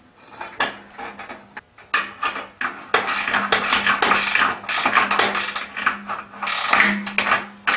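Ratchet wrench clicking in quick runs as it drives the 5/16 bolts that hold a kerosene torpedo heater's spark plug bracket, with metal tool-on-metal rattling. The clicking starts about two seconds in and gets denser about three seconds in.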